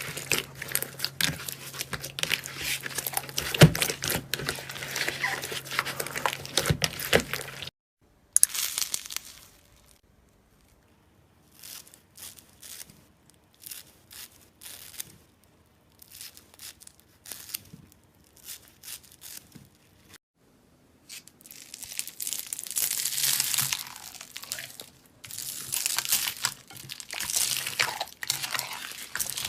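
Slime worked by hand, giving dense crackling and popping, with a sparser stretch of scattered small pops in the middle; the sound cuts abruptly about a quarter of the way in and picks up densely again about two-thirds of the way in.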